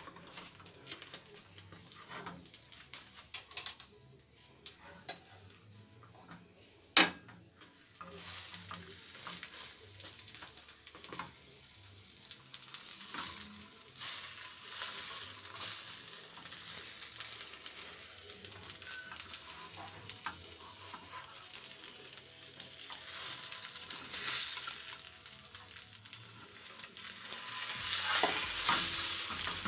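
Spinach omelette sizzling in a nonstick frying pan while a silicone spatula scrapes and rolls it, with scattered light taps. One sharp knock about seven seconds in; the sizzling is stronger from about eight seconds on.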